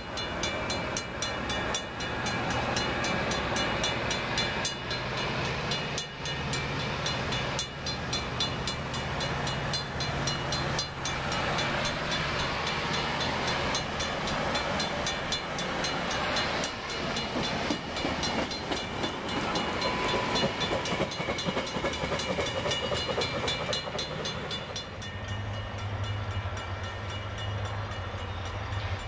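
Metra bilevel commuter train cars rolling past at speed, the wheels clicking rapidly and regularly over rail joints over a steady rumble. Near the end the clicking stops and a low steady hum remains.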